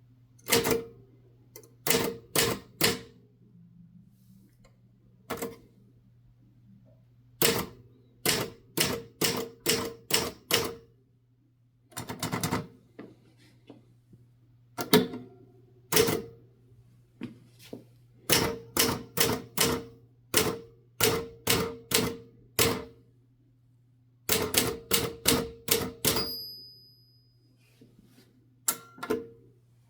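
1969 Adler J5 manual typewriter being typed on: sharp keystroke clacks in runs of several strokes with short pauses between words and phrases. A brief high ringing tone sounds near the end, just after a run of keystrokes.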